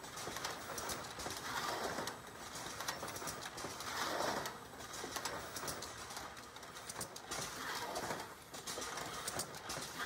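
Econocorp Spartan beer cartoner running through its cycle: the can conveyor, escapement and pivoting product in-feed give steady mechanical clatter with scattered clicks and a noisy swell that comes back every two to three seconds as the machine cycles.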